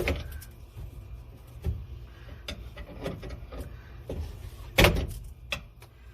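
Irregular knocks and clunks of hand tools working at a seized ignition switch being broken out, several single strikes with the loudest about five seconds in, over a low steady hum.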